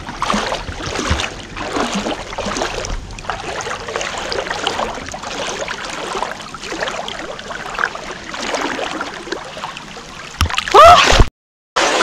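Irregular rustling and water noise, typical of wind moving through shoreline bushes and reeds by the lake. About eleven seconds in, a person gives a loud wavering cry, which is cut off abruptly.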